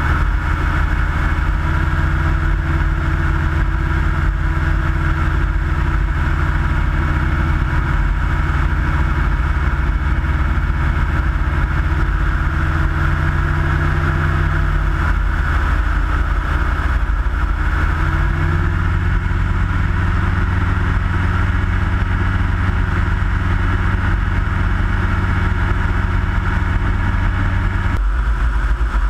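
Engine and propeller of a Minimax ultralight airplane running steadily in flight. The pitch steps up slightly about two-thirds of the way through, then drops sharply near the end.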